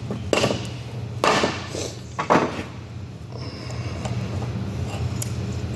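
Dead blow hammer striking the end of a puller tool hooked into a 2-inch Safeway valve, three blows in the first couple of seconds, to draw out the valve's window insert. A steady low hum runs underneath.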